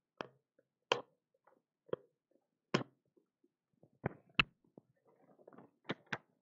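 Scattered short clicks and taps, about eight spread unevenly over several seconds, two of them close together just after four seconds in and two more near the end, with faint rustling between them in the last second or two.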